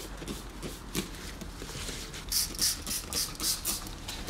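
Hand trigger spray bottle spritzing liquid onto clothing: a quick run of short hissing squirts, about three or four a second, starting about two seconds in, after a few faint clicks of the trigger.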